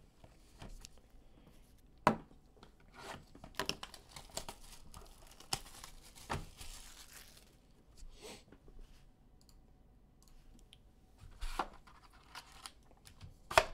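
Clear plastic shrink wrap being torn off a cardboard trading-card box and crinkled in the hand, with sharp clicks and rustles as the cardboard box is handled and its lid opened.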